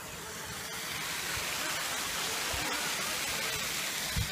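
Steady rushing hiss of falling, splashing water from a water-park feature. It swells over the first second and then holds steady.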